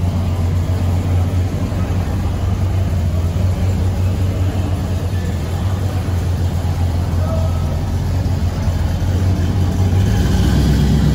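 A truck engine running steadily with a low hum, growing a little louder and busier near the end as if revving or pulling away.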